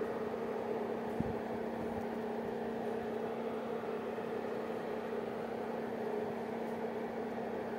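A steady mechanical hum and whir with a low steady tone under it, and one faint click about a second in.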